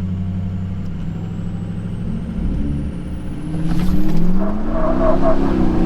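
Ford 6.0 Powerstroke V8 turbo-diesel running steadily, then accelerating hard from about two and a half seconds in, its engine note climbing and getting louder. A thin high turbo whistle rises in pitch throughout as the KC Stage 2 turbo spools up for the pull.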